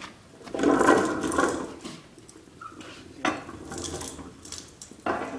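Metal tools clinking and clattering as they are handled, loudest about a second in, then two sharp knocks, about three and five seconds in.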